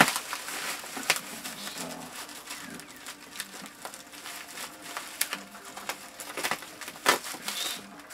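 Plastic bubble wrap and packing tape crinkling and crackling as a package is handled and its tape cut with scissors, with irregular clicks and a few sharper snaps: one at the start, one about a second in and one about seven seconds in.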